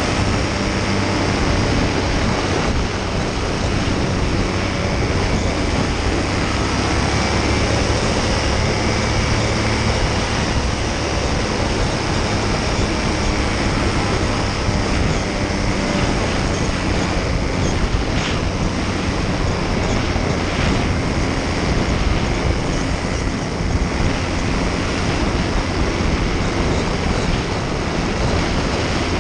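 Paramotor engine and propeller running steadily in flight, a constant drone under heavy wind rush on the microphone.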